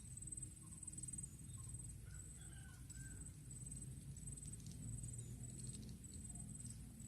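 Quiet outdoor ambience: a high, thin insect trill pulsing about twice a second, a few faint bird chirps, and a low steady rumble underneath.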